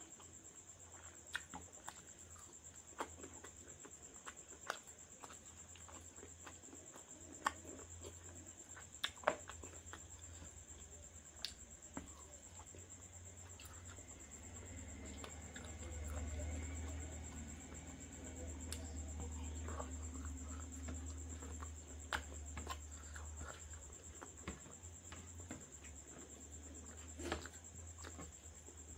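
Close, quiet eating sounds: chewing with scattered sharp mouth clicks and smacks as rice and chicken are eaten by hand. Under them runs a steady high-pitched whine and a low hum that swells for several seconds in the middle.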